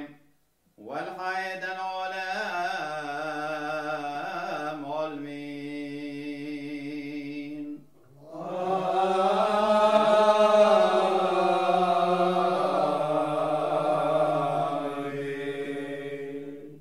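Syriac Orthodox liturgical chant: a man's voice chants a slow, drawn-out melody. After a short break about eight seconds in, louder voices together hold a long melismatic "Amen", the response to the priest's words over the bread.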